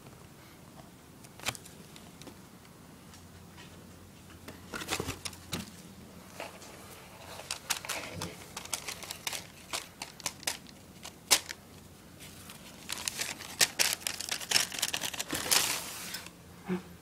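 White tissue paper lining a cardboard shoebox rustling and crinkling in irregular bursts with sharp clicks, sparse at first and busiest in the second half.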